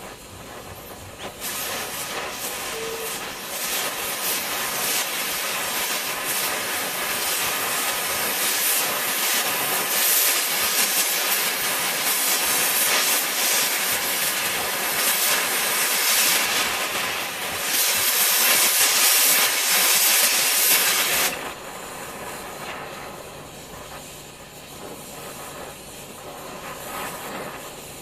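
MagneGas2 fuel-gas torch flame hissing steadily as it plays on a piece of tungsten. The hiss grows much louder about a second and a half in and drops back suddenly to a quieter hiss about three quarters of the way through.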